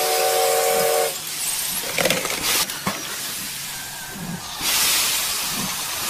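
A steam-train whistle sounding a steady chord for about the first second, then steam hissing, louder again from about three quarters of the way through, with a few light knocks.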